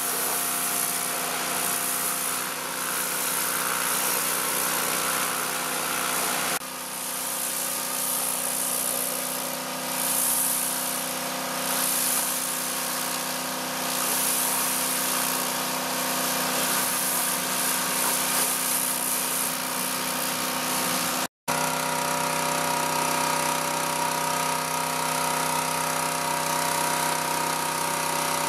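Hyundai HYW2500P petrol pressure washer running steadily, its engine hum under the hiss of a turbo-nozzle water jet spraying onto car bodywork. The sound cuts out for a split second about three quarters of the way through.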